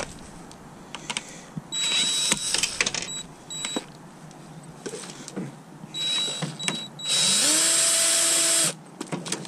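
Power drill with a screwdriver bit backing out screws. It runs in short bursts about two seconds and six seconds in, then in a longer run of about a second and a half that rises in pitch and holds steady. Clicks and rattles of handled metal and plastic parts come between the bursts.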